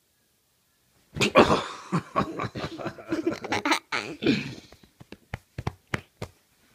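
A young girl laughing loudly right at the microphone, starting about a second in, followed near the end by a quick run of sharp taps and clicks.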